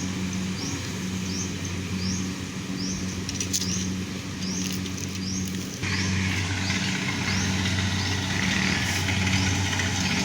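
An engine running steadily. A short, high rising chirp repeats about every two-thirds of a second. About six seconds in, a loud hiss joins and the hum grows stronger.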